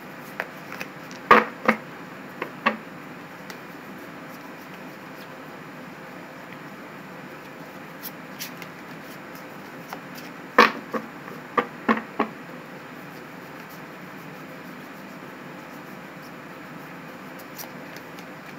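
A deck of tarot cards being shuffled by hand: sharp card taps and slaps in two short clusters, one just after the start and one about ten seconds in, with a few faint ticks between, over a steady background hiss.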